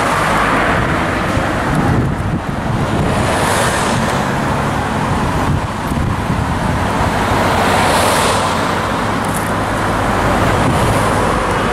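A Scania lorry's diesel engine running steadily with a low, even hum, under a continuous broad motor noise.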